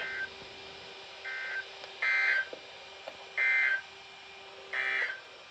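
Short bursts of raspy two-tone digital data from NOAA Weather Radio, the SAME code that marks the end of an alert message. There are several bursts, each about a third of a second long and roughly a second apart.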